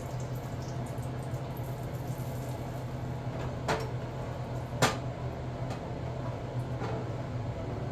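A steady low hum with three short knocks of things being handled in the kitchen, the loudest about five seconds in.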